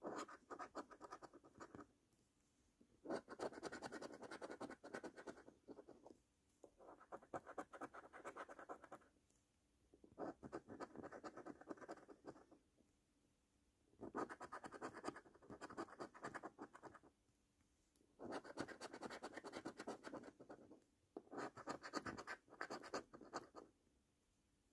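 A coin scraping the scratch-off coating from a paper lottery scratch card, in about seven bursts of rapid back-and-forth strokes, each a couple of seconds long, with short pauses between them.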